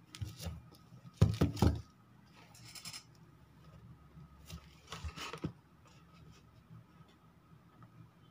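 Handling noise from a smartphone being held and tapped: scattered taps and knocks, a loud cluster of them about a second in, a short scratchy rustle a little later and a few more knocks around the middle, over a faint steady hum.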